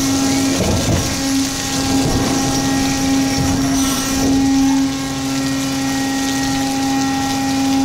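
Ship's hydraulic crane running steadily as it hoists a workboat out of the sea: a constant mechanical hum and whine over wind and water noise, with a lower hum joining about five seconds in and a brief hiss about four seconds in.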